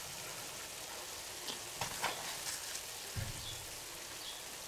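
Mushrooms, shallots and ham sizzling softly in a cast iron skillet, a steady hiss with a few faint crackles and a soft knock a little after three seconds in.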